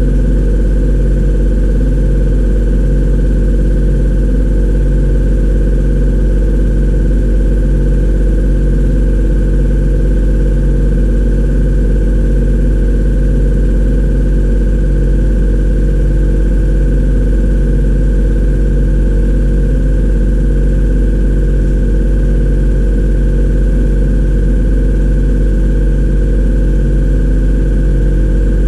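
A machine running steadily: a constant loud low hum with several steady higher tones over it, and no change in pitch or level.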